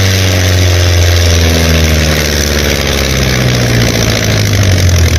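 Tractor engine idling steadily, a low, even running sound.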